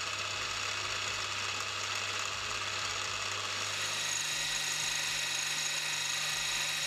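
Milling machine spindle running a coated four-flute end mill through a metal workpiece: a steady motor hum with a thin high cutting whine above it. The hum changes pitch about four seconds in.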